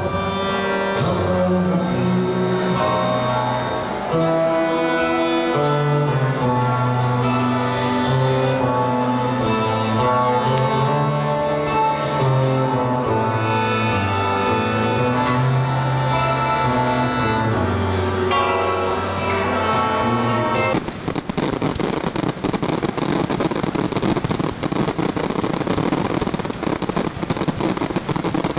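Live acoustic folk band playing, with cello, accordion, acoustic guitars and frame drum, sustained melodic notes over a steady low bass line. About 21 seconds in, the music cuts off and fireworks take over: dense, continuous crackling with many sharp pops.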